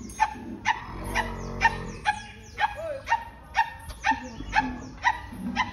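Short, high yelping barks repeating evenly about twice a second, with a lower, drawn-out call between about one and two seconds in.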